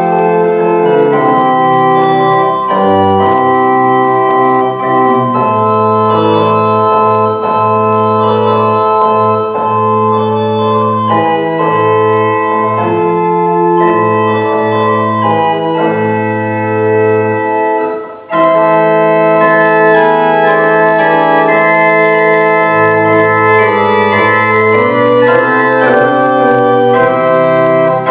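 Church organ playing sustained chords over a low bass line. It breaks off for a moment about eighteen seconds in, then resumes with a brighter, fuller sound.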